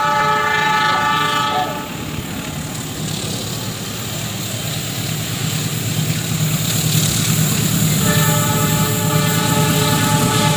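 KAI diesel locomotive of an approaching passenger train sounding its multi-tone horn, which stops about two seconds in. The engine's low rumble grows louder as the train closes in, and the horn sounds again about eight seconds in.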